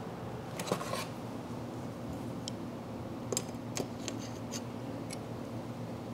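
Light metallic clicks and taps of pliers handling the small sheet-metal cover and spring arm of a fuel sending unit. There is a cluster of clicks about a second in, then a scattered run of them from about three to five seconds.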